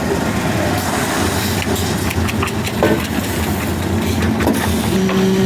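An engine running steadily with a low hum, with scattered knocks and clatter over it; a second, higher steady hum comes in near the end.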